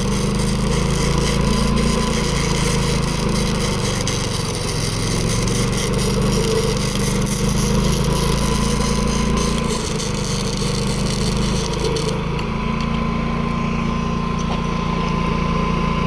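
Predator 11,500-watt inverter generator running under welding load while a welding arc sizzles and crackles. The arc stops suddenly about twelve seconds in, leaving the generator engine running steadily.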